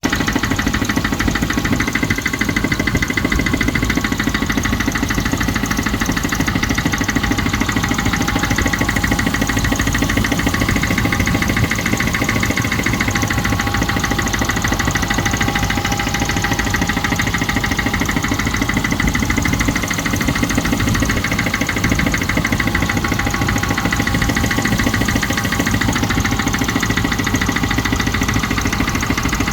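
Range Rover Classic 3.5-litre V8 idling steadily with a fast, even ticking knock that keeps time with the engine. The owner is unsure whether it is an engine knock or noisy tappets.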